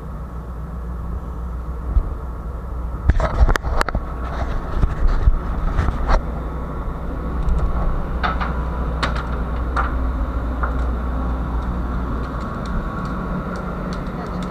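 A steady low rumble of ship's machinery on deck, with a run of sharp knocks and clatter from about three seconds in, thinning out over the next several seconds, as a fish is hauled up the hull and swung aboard.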